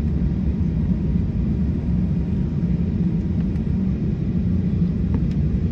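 Steady low rumble inside the cabin of a Boeing 737-800 taxiing after landing, its CFM56 engines at idle.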